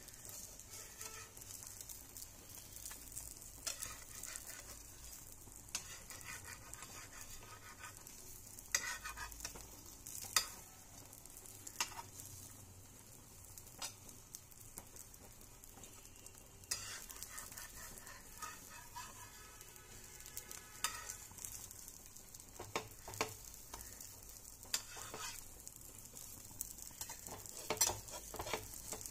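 Omelette frying in mustard oil in a non-stick pan, a steady sizzle. A flat spatula scrapes and knocks against the pan at irregular moments as the omelette is lifted and rolled.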